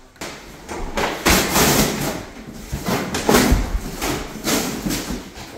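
Handling noise: an irregular run of rustling, scraping bursts and thumps, the loudest thump about three and a half seconds in.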